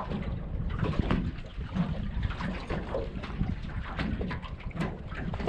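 Water lapping and slapping irregularly against the hull of a small fishing boat, over a low steady rumble.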